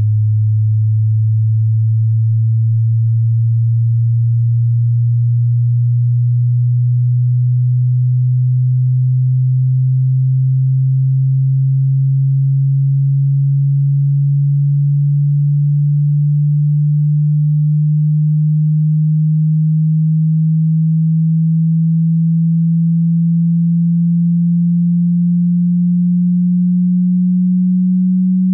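Hearing-test sine tone: one pure, steady, low tone sliding slowly and evenly upward in pitch, as a frequency sweep does.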